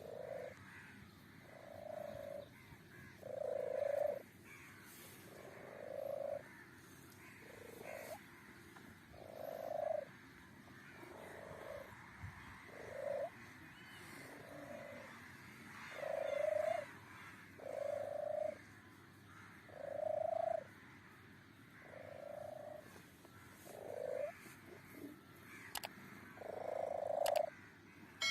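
Kitten giving a short call over and over, about once every one and a half to two seconds, around sixteen times.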